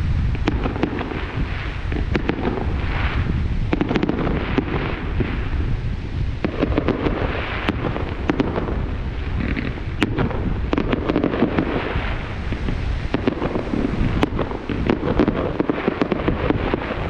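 Fireworks display: a continuous barrage of crackling and sharp bangs over a steady low rumble.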